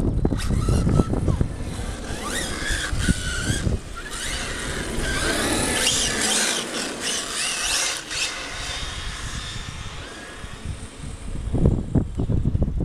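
Traxxas X-Maxx monster truck and Hobao VS2 buggy driving past on asphalt: high motor whines rise and fall with the throttle, loudest in the middle. A low rumble comes at the start and again near the end.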